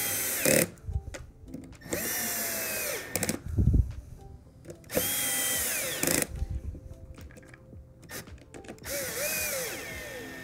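Power drill driving screws into the top of a Vacuflush vacuum pump: four short runs of about a second each, the motor's whine spinning up, holding and winding down as each screw seats. Clicks and a few low knocks from handling the screws and pump come between them.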